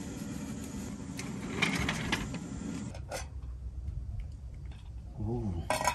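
Handling of camp breakfast gear: a plastic bag rustling, then a light click of a small camping pot and lid, over a steady low hiss that cuts off abruptly about halfway.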